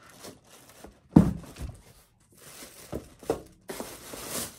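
Cardboard boxes being handled: a sharp thump about a second in, then cardboard scraping and rubbing, with a crinkling rustle of plastic near the end.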